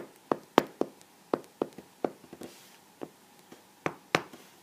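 Sharp taps and clicks of writing on a tablet's glass screen, about a dozen irregularly spaced strokes as letters and a number are written by hand.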